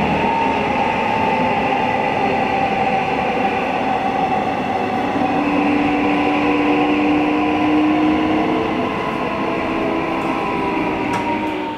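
Cabin noise of a Korail 391000-series electric subway train under way: a steady running rumble with a motor whine that slowly shifts in pitch.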